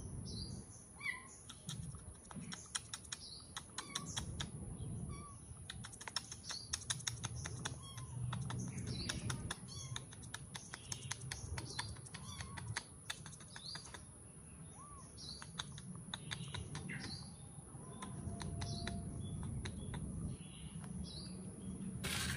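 Outdoor garden ambience: small birds chirp now and then over a steady high whine and a low rumble, with many quick faint clicks scattered throughout.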